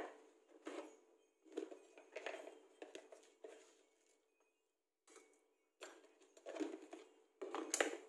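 Quiet kitchen handling: a series of short scrapes and taps of utensils and seasoning containers against a stainless steel saucepan as seasonings go in, with a pause around four to five seconds in.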